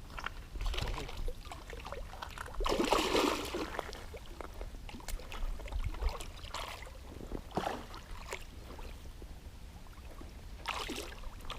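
River water splashing and sloshing in irregular bursts, the loudest about three seconds in.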